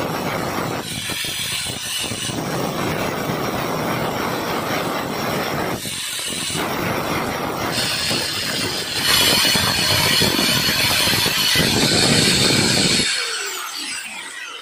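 Electric angle grinder running with its disc grinding a small metal tube, throwing sparks; the sound dips and swells as the piece is pressed on and eased off, loudest toward the end. About 13 seconds in it is switched off and winds down with a falling whine.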